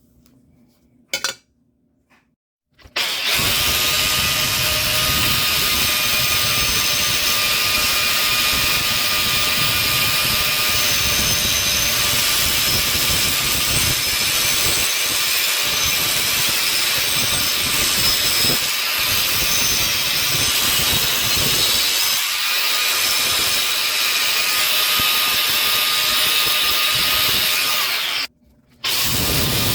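Electric power tool grinding down the broken steel nose of needle-nose pliers to even it out. It runs steadily from about three seconds in, stops briefly near the end and starts again.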